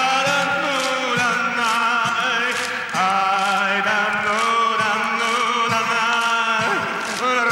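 A song: a voice sings long, wavering held notes over instrumental accompaniment, with short breaks about three seconds in and near the end.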